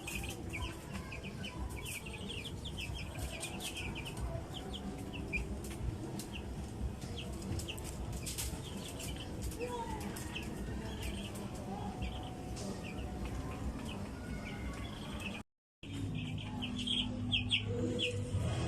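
A flock of young broiler chicks peeping continuously: many short, high, overlapping peeps over a low background rumble. The sound cuts out briefly near the end.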